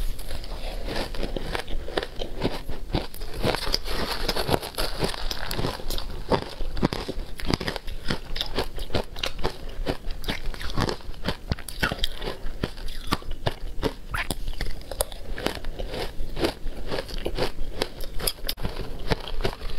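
Shaved ice dusted with matcha and milk powder being bitten and chewed: a dense, irregular run of sharp, crackly crunches.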